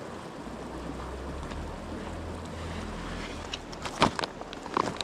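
Steady rush of river water with wind buffeting the microphone; a few sharp knocks or clicks about four seconds in and again near the end.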